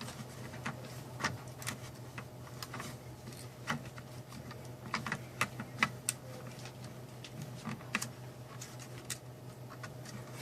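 Light, irregular plastic clicks and taps as the printer mechanism and ribbon-cable connectors of a Nurit 2085 card terminal are handled and pushed down into place, over a steady low hum.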